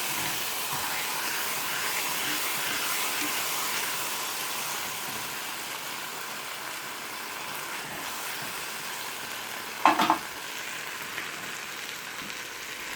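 Chicken pieces sizzling steadily in oil in a frying pan. A brief sharp knock with a short ring sounds about ten seconds in.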